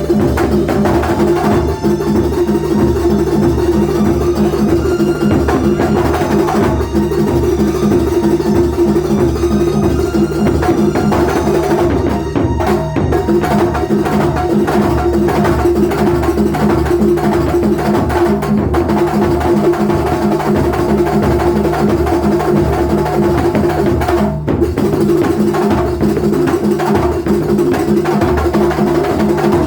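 Loud amplified kuntulan music from Banyuwangi: a traditional ensemble playing dense, fast drum and frame-drum patterns over a steady held drone.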